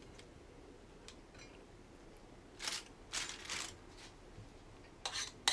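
Kitchen knife trimming the root and top off a whole roasted onion on a cutting board: a few short scraping cuts about two and a half to four seconds in, and a couple more sharp scrapes near the end.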